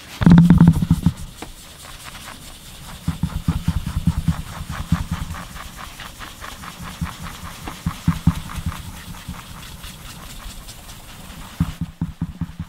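Folded paper towel scrubbing toothpaste and water over a scratched DVD's plastic surface in quick, even back-and-forth strokes: the fine abrasive polishing stage of repairing the disc. There is a louder rustle and knock in the first second.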